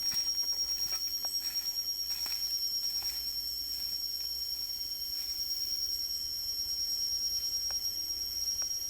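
Forest insects droning steadily: a high, fast-pulsing whine, with faint clicks and two brief thin squeaks near the end.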